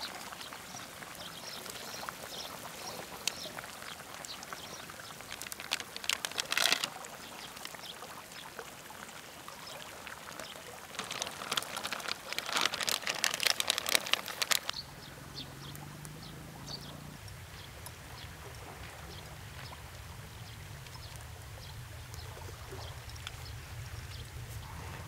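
Hot pot broth simmering over a crackling wood campfire, with scattered small pops. There are louder splashing bursts about six seconds in and from about eleven to fourteen seconds in, the second as meatballs are squeezed from a bag into the broth. A low steady hum comes in about fifteen seconds in.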